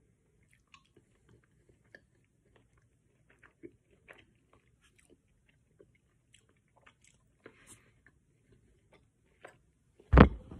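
Faint mouth sounds of chewing a soft, gummy carrot chew, with scattered small clicks and short rustles from fingers handling the chews. One loud thump about ten seconds in.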